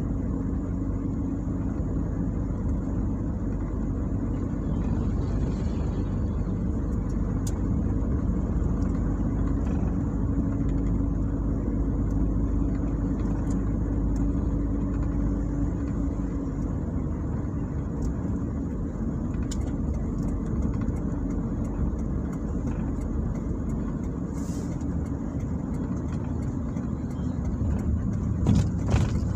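Car engine and tyre noise heard from inside the cabin while driving: a steady low rumble with an engine drone. There are a few louder knocks near the end.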